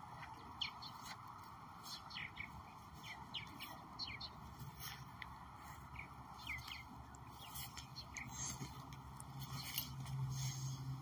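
Birds chirping: many short, high chirps, each falling in pitch, scattered over a steady background hiss. A low hum comes in near the end.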